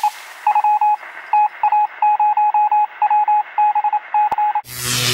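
A single electronic tone keyed on and off in quick runs of short and longer beeps, in the manner of Morse code. Near the end it stops, and a sharp click is followed by a loud whoosh with a low hum under it.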